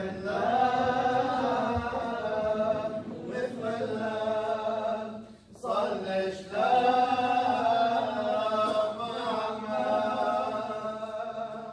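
Church of the East liturgical chant in Syriac: voices singing long held, slightly wavering notes, with a brief pause for breath about five and a half seconds in and a fade near the end.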